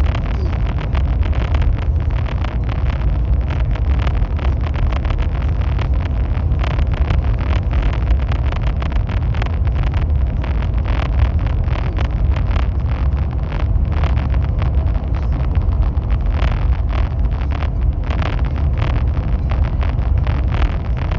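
High-speed train running at speed: a steady deep rumble with a dense crackle of fine clicks from wheels and rails over it.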